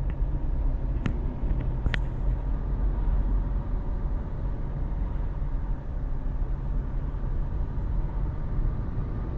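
Steady low rumble of a car moving in rush-hour traffic, heard from inside the car, with two short sharp clicks about one and two seconds in.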